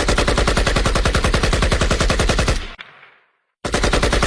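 Automatic gunfire sound effect: a long burst of rapid, evenly spaced shots lasting about two and a half seconds that ends with a short fading echo, then after a brief silence a second rapid burst begins.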